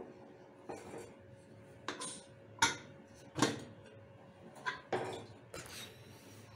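Aluminium pressure cooker lid being twisted loose and lifted off the pot: a string of sharp metal clinks and scrapes, the loudest a little under halfway through.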